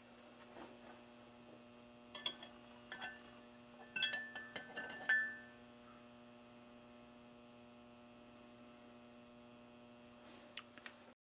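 Faint steady electrical hum, with a scatter of light clinks that ring briefly, a couple about two to three seconds in and a quick cluster around four to five seconds in.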